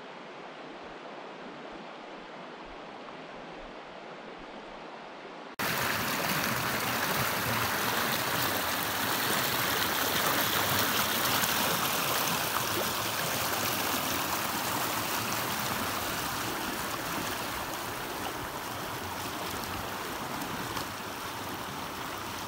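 River water flowing over a shallow stony bed: a soft, steady rush, then about five and a half seconds in a sudden jump to the much louder, fuller rush of whitewater rapids close by.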